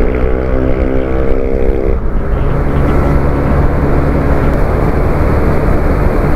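Yamaha scooter's engine pulling under acceleration, its note climbing and then holding, over heavy wind noise. About two seconds in the sound changes abruptly to a steady cruise at speed, mostly wind and road noise with the engine droning underneath.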